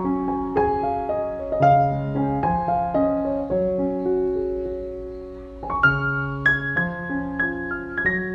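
Background piano music: soft chords and a slow melody of struck notes, thinning out near the middle and picking up again about six seconds in.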